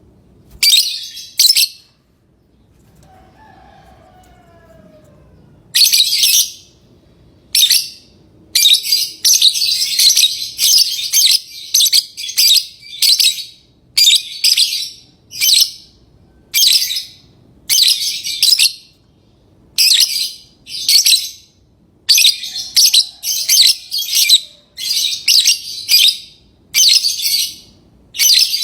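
Lovebirds calling with shrill, harsh chirps: one short call about a second in, then after a pause a long run of short calls, one or two a second.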